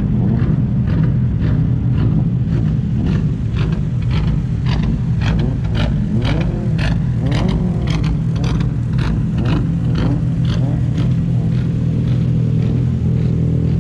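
A car engine running steadily at low revs, with a run of sharp ticks about twice a second through the middle.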